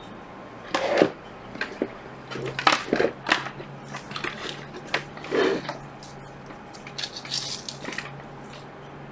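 Irregular clicks, knocks and scrapes of hands handling a laptop board and plugging in its power supply lead. A faint low steady hum sets in about two and a half seconds in.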